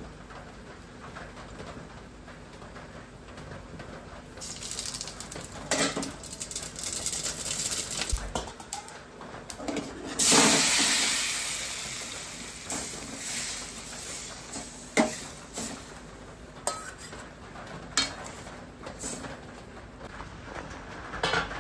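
Seeds sizzling in hot oil in an aluminium kadai, with a metal spoon knocking and scraping against the pan. About ten seconds in, the sizzling surges loudly as small peeled fruits are tipped into the hot oil, then fades as they are stirred, with a few more spoon knocks.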